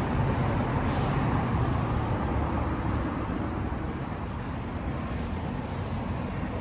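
Suzuki Katana's 999 cc inline-four engine idling steadily, a dense low exhaust rumble.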